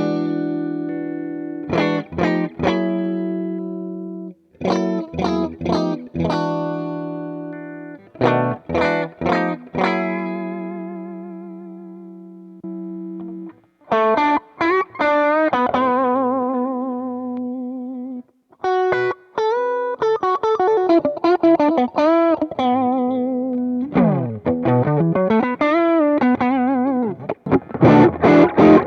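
Electric guitar, a 1990s Giannini Stratosonic, played through a Sonicake Sonic IR impulse-response cabinet-simulator pedal and recorded direct without an amp. Chords are struck and left to ring out, then single lead notes with vibrato and bends follow, a swooping pitch slide down and back up comes about 24 seconds in, and the playing grows busier near the end.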